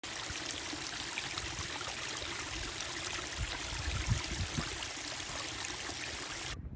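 A small stream or brook running, a steady rushing and trickling of water, with a few low thumps on the microphone about four seconds in; it cuts off suddenly near the end.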